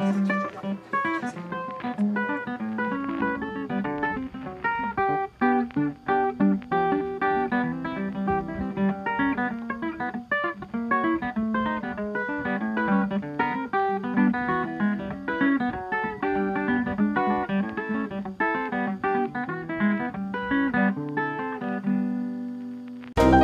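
Background music: a plucked acoustic guitar playing a melody with many quick notes. It fades out near the end, and a louder, brighter tune starts right at the close.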